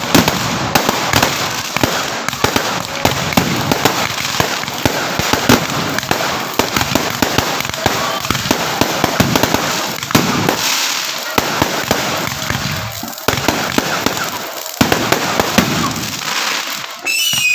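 Fireworks going off in a dense, continuous barrage of sharp cracks and bangs. A whistling tone starts just before the end.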